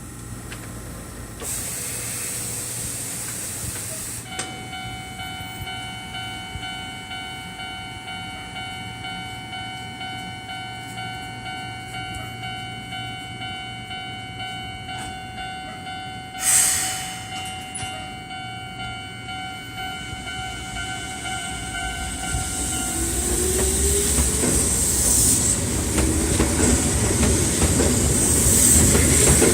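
Keihan Otsu Line electric train standing at the platform with a steady electrical whine from its equipment. A sharp air hiss comes about halfway through, typical of the brakes releasing. In the last several seconds the train pulls away and its running noise rises.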